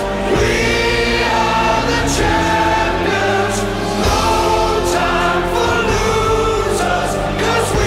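Background music with choir-like singing of long held notes.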